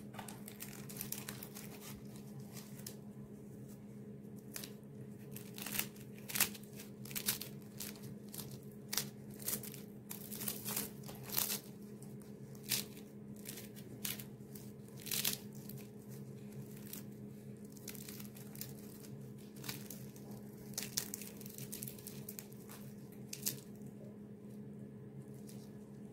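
Crisp, flaky layers of a freshly baked, hand-stretched Turkish börek crackling and crunching as it is pulled and torn apart by hand. The crackles come irregularly, thickest between about five and sixteen seconds in, over a steady low hum.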